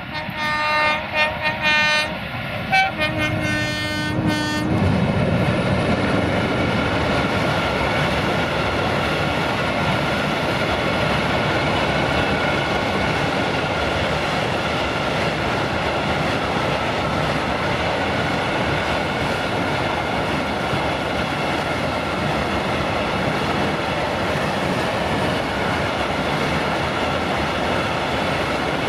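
Electroputere LDE2100 (060-DA) diesel locomotive sounding its horn in several short blasts and then one longer blast as it passes. A long train of empty coal hopper wagons then rolls past steadily.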